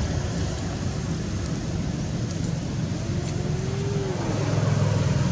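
Steady low engine rumble with a hiss over it, growing a little stronger near the end, and a faint thin tone that rises and falls in the middle.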